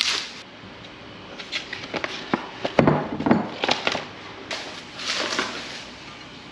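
Plastic bubble wrap and cardboard packaging rustling and crinkling as glass baking dishes are unpacked, with scattered clicks and a couple of sharper knocks about three seconds in.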